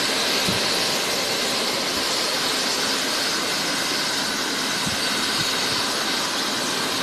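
Hair dryer running with a steady hiss, blowing warm air on a rain-soaked chick held in a hand.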